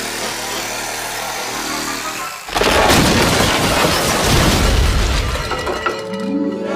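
Cartoon music, then a sudden loud explosion sound effect about two and a half seconds in: a boom with a noisy rumble that fades over about three seconds.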